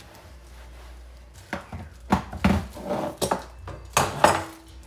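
Kitchen clatter: a run of sharp knocks and clinks of utensils against dishes, starting about a second and a half in.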